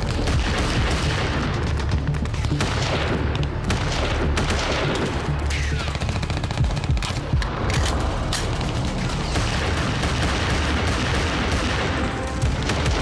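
Battle sound effects: rapid, continuous gunfire and machine-gun bursts over the deep booms of explosions.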